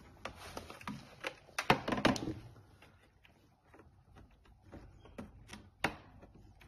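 Small clicks, knocks and rustles of a plastic wire connector being unplugged from a treadmill's circuit board and its plastic housing handled, with a cluster of louder clicks about two seconds in and a sharp click near the end.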